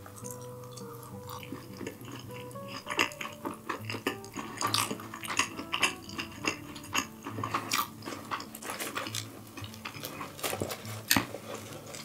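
Light background music playing under irregular clicks and clatter of utensils and dishes as food is handled and served; the clatter picks up about three seconds in.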